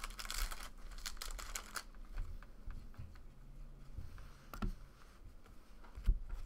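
Foil trading-card pack wrapper crinkling and cards being shuffled by hand for the first couple of seconds, then quieter handling with two light knocks as cards are set down on the table.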